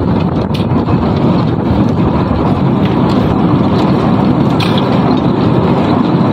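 Centrifugal concrete-pipe spinning machine running: the steel pipe mould turns on its rollers with a steady, loud rumble while it is being filled with concrete mix.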